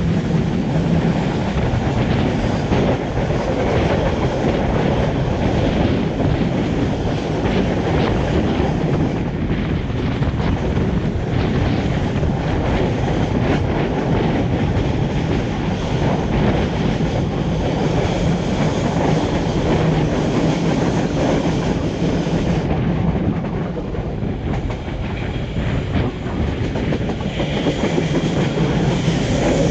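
Passenger train running at speed, heard from beside the carriage: a steady rumble and rush of wheels on rail, with the clickety-clack of the wheels passing over rail joints.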